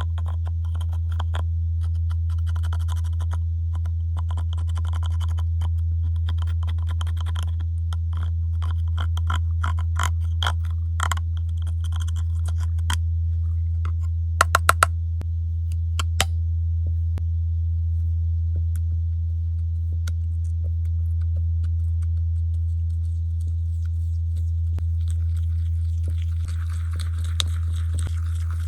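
Pressed eyeshadow being crushed and worked into slime: scraping, crackling and sticky clicks over a loud, steady low hum. A quick run of four sharp clicks comes near the middle, and the last few seconds turn to a soft hissing squish.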